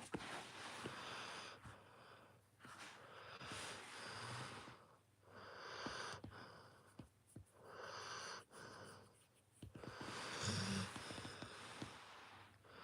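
Seven-month-old Rottweiler puppy snoring in deep sleep: faint, wheezy breaths coming slowly and regularly, about one every two seconds.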